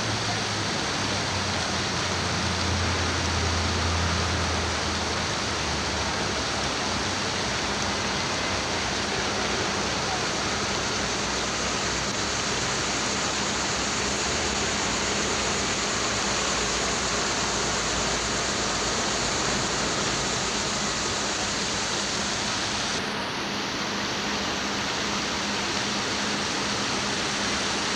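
Steady rushing and splashing of water from a fountain's jets falling onto a bronze sculpture and into its basin. There is a faint low hum under it, and the sound shifts slightly about 23 seconds in.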